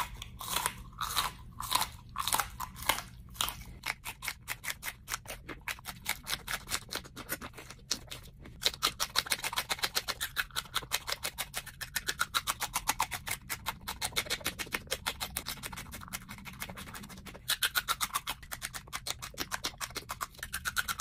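Close-miked crunching and chewing of fresh cayenne peppers, bitten and chewed one after another in quick, regular crisp crunches.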